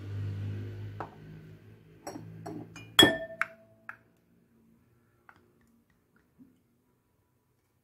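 Small glass measuring cup knocked against a glass mixing bowl: a few light taps, then one sharp clink about three seconds in that rings briefly, followed by faint ticks.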